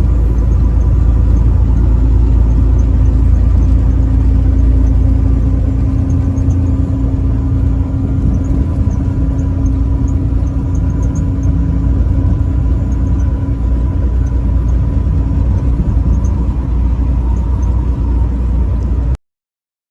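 Truck driving on the highway: a steady low rumble of engine and road noise with a faint steady drone through it, cutting off suddenly near the end.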